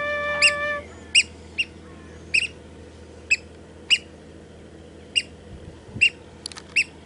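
Eurasian oystercatcher giving short, sharp, high piping calls, about a dozen at irregular intervals of half a second to a second. A held flute-like music chord under the first calls stops about a second in.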